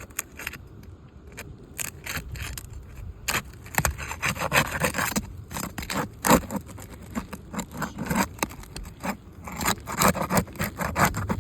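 Scraping and irregular sharp clicks of a tool working under an asphalt roof shingle, prying it and its nails loose, with denser scraping about four seconds in and again near the end.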